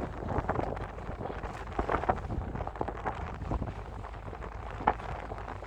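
Wind buffeting the microphone: an uneven low rumble with irregular gusts.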